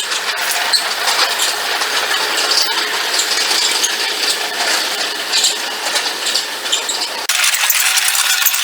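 Mustang MTL25 compact track loader at work: engine noise mixed with dense metallic clatter and clicking from the machine and its tracks. About seven seconds in, the sound shifts abruptly and its hum jumps up in pitch.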